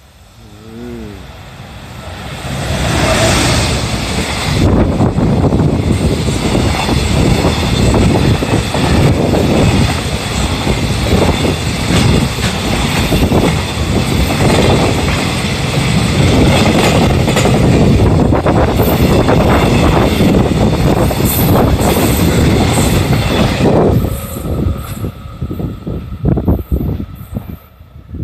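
Freight train hauled by an EF210 electric locomotive passing close by: the noise builds as the locomotive arrives over the first few seconds, then the wagons roll past for about twenty seconds with a loud, rumbling clatter of wheels over the rails. The noise drops away near the end as the last wagon passes.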